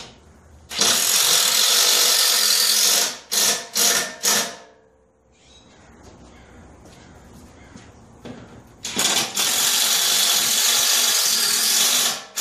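Cordless drill running under load in aluminum diamond plate over a steel trailer frame, pre-drilling and driving screws: a run of about two seconds, three short trigger blips, then another run of about three seconds near the end.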